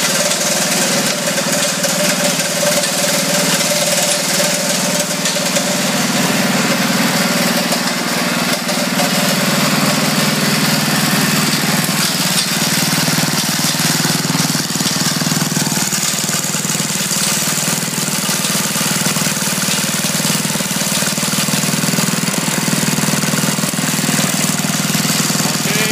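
Auto-feed wood chunker running, its engine going steadily with the cutter disc turning, a constant mechanical hum and rattle with no distinct chopping strikes.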